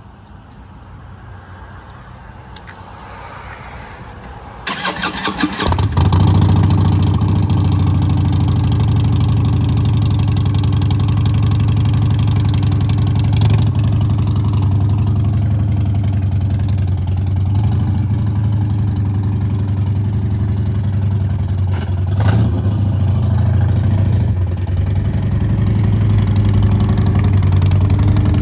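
Custom Harley-Davidson motorcycle engine cranked by its starter about five seconds in, catching at once and settling into a loud, steady idle.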